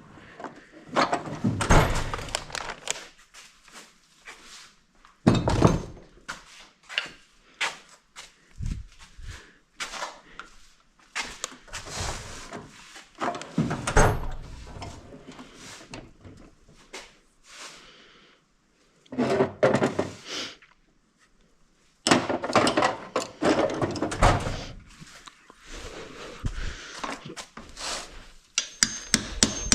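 Irregular clanks and thunks of heavy metal tools and parts being handled. Near the end comes a quick, even run of hammer blows on metal with a ringing tone, beating on a seized bolt.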